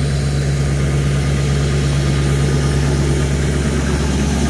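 LBZ Duramax 6.6 L V8 turbo-diesel idling steadily after a cold start at −18°F, now running smoothly.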